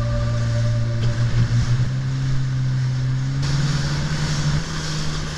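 Jet ski engine running with a steady hum over the rush of water and wind. About three and a half seconds in it picks up, rising in pitch as the rush of spray grows louder.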